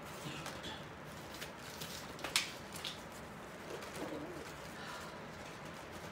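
Quiet room with scattered light clicks and taps from rod shadow puppets being handled, the sharpest a little over two seconds in, and a brief soft low tone about four seconds in.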